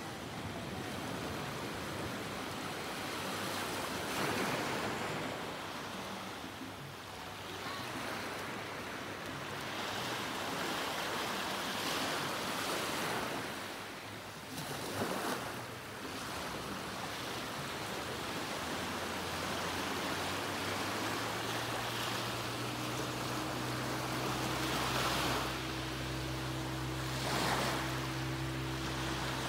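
Small waves breaking and washing up a sandy beach, the surf swelling every few seconds. About two-thirds of the way through, a steady low engine hum comes in under the surf.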